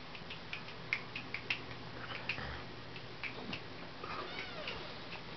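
A kitten gives one short, soft meow about four seconds in, among scattered light clicks and taps.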